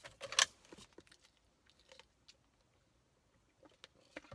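Close-up chewing and wet mouth clicks of someone eating a spoonful of berry fruit bowl, loudest in a quick cluster of clicks just after the start, then scattered small clicks with a quiet stretch in between.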